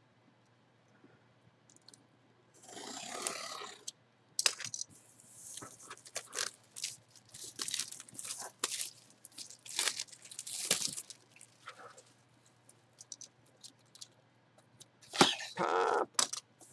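Cardboard box being opened by hand: a scraping stroke about three seconds in, then a run of crackling and tearing from the cardboard lid and packaging, with a louder rustle near the end.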